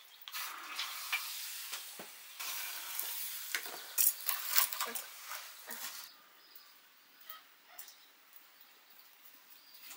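Food sizzling in a hot pan while being stirred, with clicks and scrapes of the utensil against the pan. The sizzling stops about six seconds in, leaving a few scattered clicks.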